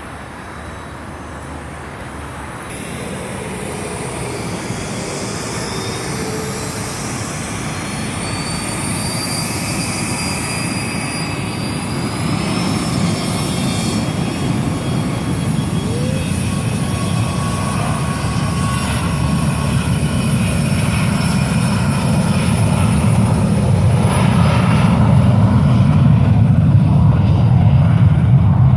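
Jet aircraft engines at high power for takeoff, with a high whine that rises in pitch and a low rumble. The sound grows steadily louder as the jet comes closer, with the rumble loudest near the end.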